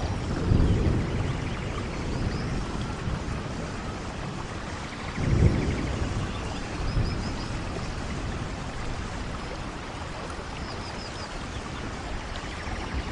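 Steady rain, with low rolls of thunder about half a second in and again around five seconds in, the second the louder.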